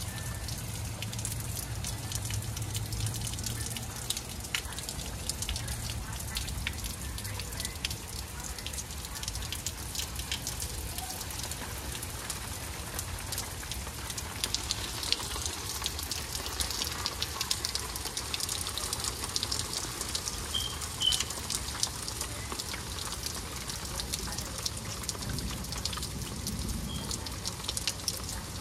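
Rain falling, a steady patter of many small drops striking surfaces, somewhat heavier around the middle.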